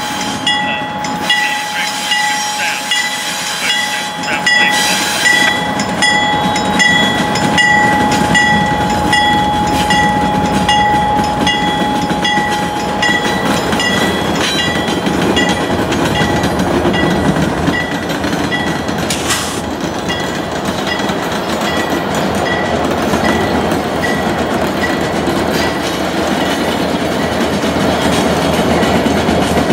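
Loaded coal train passing: Norfolk Southern GE Dash 8-40CW and Dash 9-44CW diesel locomotives followed by a BNSF SD70ACe, their engines running with a steady high whine through the first half. The wheels clatter on the rails as the loaded coal hoppers come by near the end.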